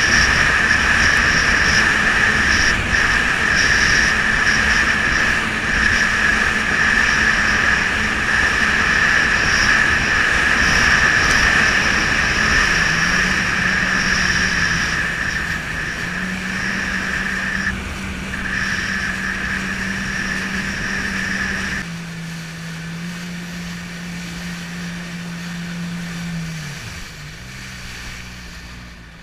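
A jet ski's engine running under way, steady with a high whine over it. About 22 s in, the whine cuts off and the engine note drops as the throttle eases. The engine sound then fades lower toward the end.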